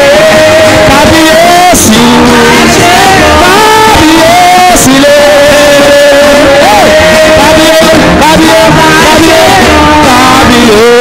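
Live gospel worship music: a man sings long held notes into a microphone over band accompaniment.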